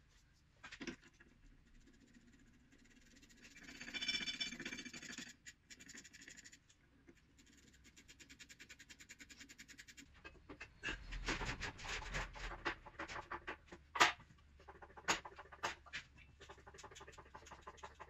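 Ratchet wrench clicking in runs of rapid ticks as the exhaust bracket bolts are tightened under the car, with the busiest run in the second half and a single sharp metal click about fourteen seconds in.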